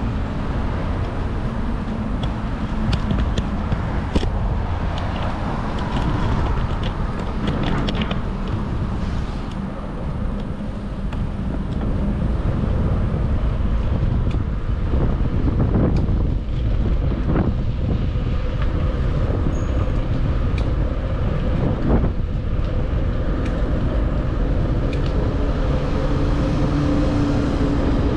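Steady wind rumble on a GoPro Hero 9 Black's microphone while riding a bicycle, mixed with road traffic alongside. Scattered short clicks and knocks from the bike come through over the rumble.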